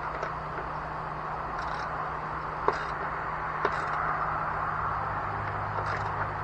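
A few sharp clicks and short clinks over a steady hiss and low hum.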